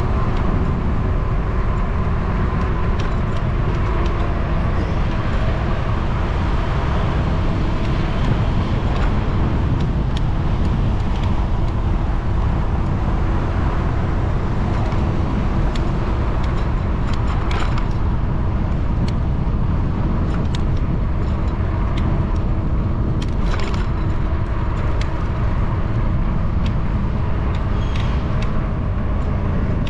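Steady street noise heard from a moving bicycle: a low rumble of wind and tyres, with car traffic alongside and scattered light clicks and rattles, two of them plainer a little past halfway and about three-quarters through.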